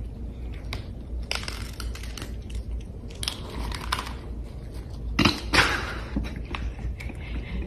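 Two cats crunching dry kibble from a shared bowl: irregular crisp crunches, with a louder burst of crunching about five seconds in.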